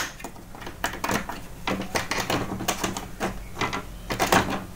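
Hard plastic clicks and knocks from an Epson L380 printer's paper pickup roller assembly being worked and pressed into its mount by hand: irregular, with a sharp click right at the start and another loud knock about four seconds in.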